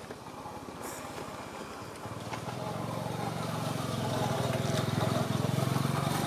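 A motor vehicle's engine running, its low hum coming in about two seconds in and growing louder as it approaches.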